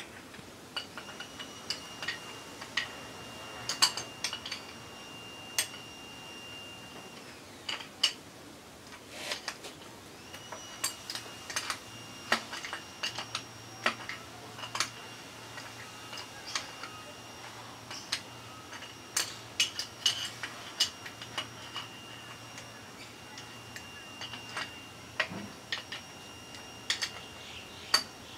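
A ratchet wrench working bolts on an engine's cylinder head, giving sharp metallic clicks in irregular short runs, with the odd louder knock of steel on steel.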